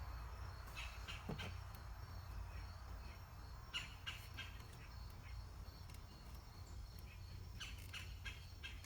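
Faint scattered clicks and small handling sounds of a hand crimping tool and spade connectors as connectors are crimped onto wires, some clicks in quick clusters about four seconds in and near the end, over a low steady hum.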